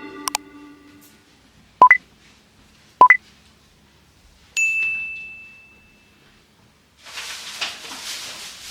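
Two short electronic blips rising in pitch, about a second apart, then a single ding that rings out and fades over about a second and a half; a hiss comes in near the end.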